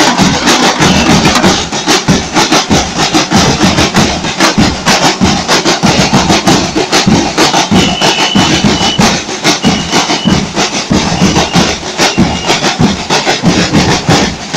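Carnival street percussion band playing: big bass drums and snare drums struck with sticks in a loud, fast, dense rhythm that never stops, with a few short high tones cutting through about eight to thirteen seconds in.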